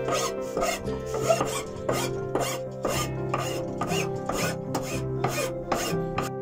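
Hand file rasping across the top of an oak bench leg in steady strokes, about two a second, over soft background music.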